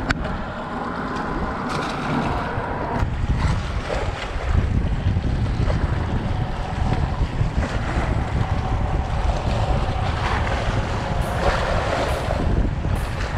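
Wind buffeting the microphone over small, choppy waves lapping and splashing against shoreline rocks, a continuous rough rush that grows heavier and lower after about four seconds.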